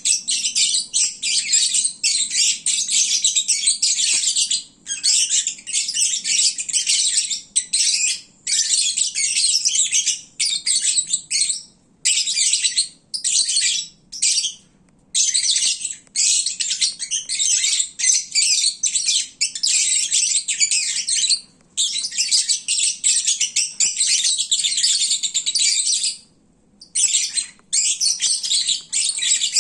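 Lovebirds chattering and chirping in a shrill, nearly unbroken stream, with a few brief pauses, the longest near the end. This is their noisy chatter when full and drowsy after feeding.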